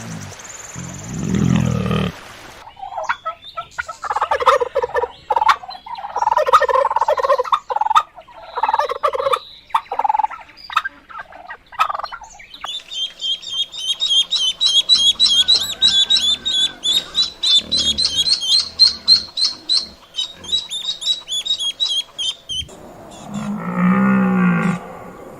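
Farmyard fowl calling in a series of short, broken calls, followed by a long run of rapid, high chirps. Near the end a cow begins to moo.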